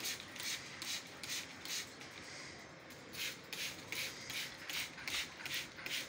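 Handheld water sprayer squirting at the birds in quick repeated spritzes: short hissing bursts, about two or three a second, with a brief lull in the middle.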